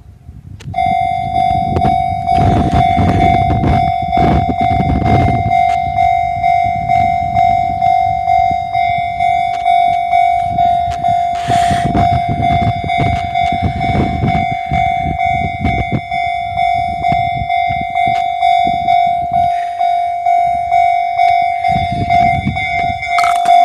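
Japanese level-crossing warning bell (electronic) starting about a second in and ringing a steady repeated ding, a little under two a second, signalling that a train is approaching. A train rumbles and clatters through the crossing under it, loudest a few seconds in.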